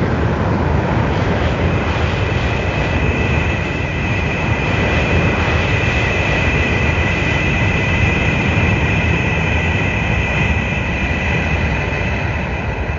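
A Gamera film sound effect: a long, steady rushing roar with a high whistling tone on top, fading out near the end.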